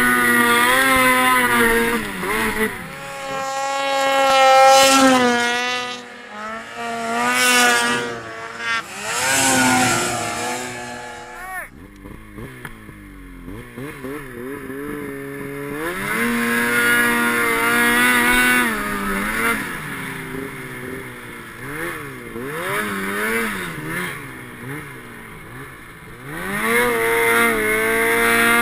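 Snowmobile engine revving up and down while being ridden, its pitch repeatedly rising and falling, with a sudden change about twelve seconds in after which the engine runs and revs on.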